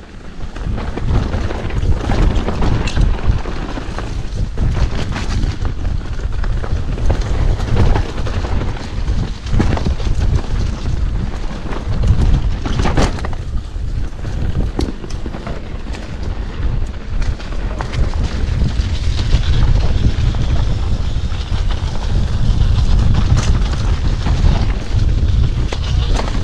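Wind buffeting the microphone of a mountain-bike rider's action camera on a fast dirt-trail descent, a heavy low rumble, with irregular knocks and rattles from the bike jolting over the bumpy ground.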